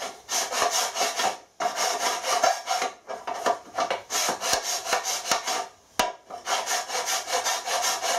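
Hand file rasping in long back-and-forth strokes across a cast aluminium engine sump, dressing down a fresh weld repair. About five strokes, each a second or more long with short pauses between them, and a single sharp click about six seconds in.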